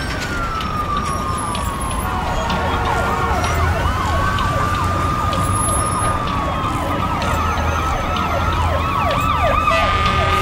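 Several emergency sirens sounding together over a steady low rumble. One wail falls slowly at the start. Bursts of fast up-and-down yelping sweeps come about a third of the way in and again near the end.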